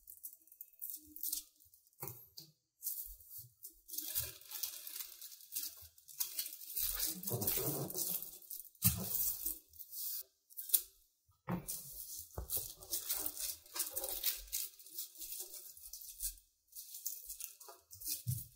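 Tissue paper rustling and crinkling in irregular bursts as hands fold its edges over a wooden dowel frame, with a few soft knocks.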